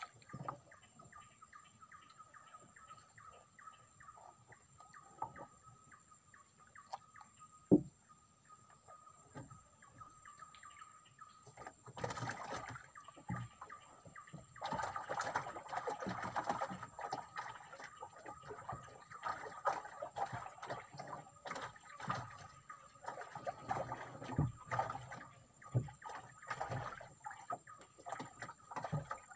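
Water slapping and crackling around a small wooden boat, with scattered knocks and one sharp thud about eight seconds in. The crackling grows busier from about twelve seconds on, over a steady thin high tone.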